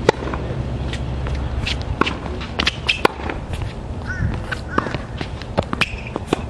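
Tennis play on a court: irregular sharp racket-on-ball hits and footsteps, over a steady low rumble.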